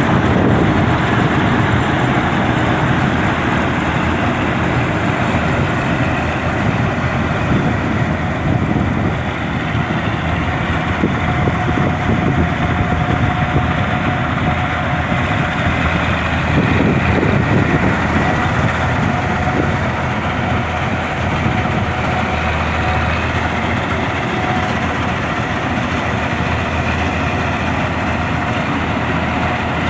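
Combine harvester running, a steady heavy engine and machinery drone that goes on unbroken.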